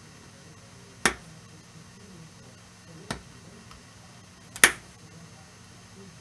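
Hobby knife trimming the glued-in styrene insulator pieces flush at a gap in model railway rail, giving three sharp clicks, about one, three and four and a half seconds in, the last the loudest.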